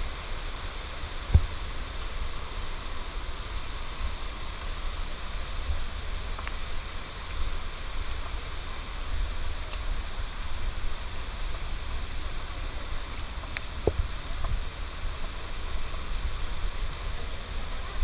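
Steady forest ambience on a handheld camera microphone: an even hiss over a wavering low rumble of wind and handling, with two sharp knocks, one about a second and a half in and one late on.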